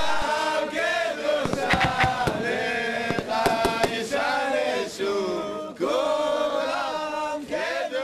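A group of men's voices singing together in a chant-like song, with a few sharp knocks or claps between about one and a half and four seconds in.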